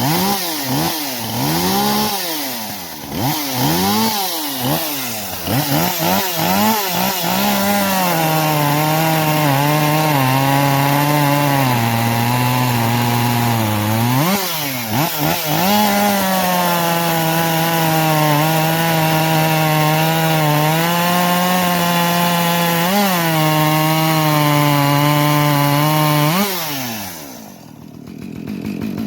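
Husqvarna 545 Mark II 50cc two-stroke chainsaw revved several times in quick blips, then held at full throttle while cutting into wood, its engine pitch sagging under load. Near the end the throttle is released and it drops back to idle.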